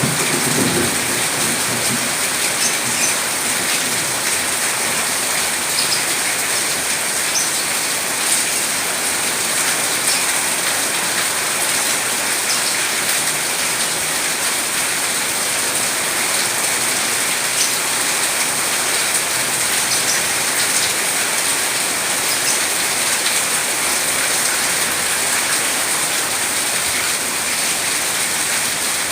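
Steady heavy rainfall, an even hiss of rain on surfaces, with the last of a thunder rumble dying away about a second in.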